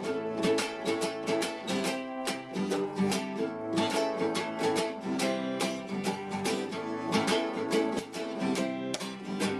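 Acoustic guitar strummed in a quick steady rhythm, an instrumental passage of a song.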